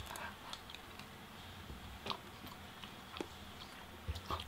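Eating sounds of people spooning ice cream: soft mouth sounds with scattered short clicks of metal spoons, a sharper click about two seconds in, another about three seconds in, and a few near the end.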